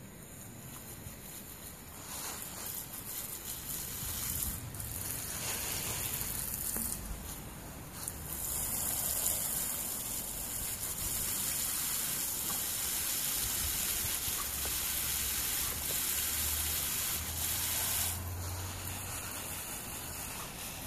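Garden hose spray nozzle hissing as a fine jet of water sprays out and spatters on the grass and on a dog. The hiss grows louder about eight seconds in and eases near the end.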